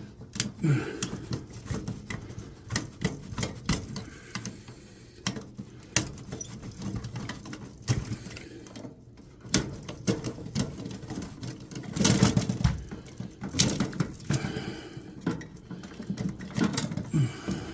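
Irregular clicks, taps, rattles and scrapes of hand tools and metal parts being worked while wiring is disconnected in an HVAC unit's electrical compartment, with a louder cluster of knocks about twelve seconds in.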